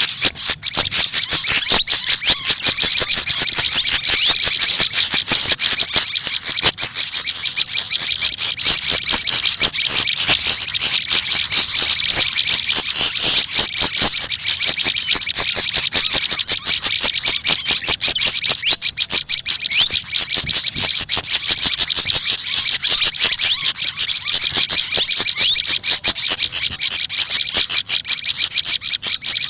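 Continuous fast, high-pitched chirping and twittering of small songbirds, the pied fantail (sikatan kipas) and the prenjak lumut, running on without a break.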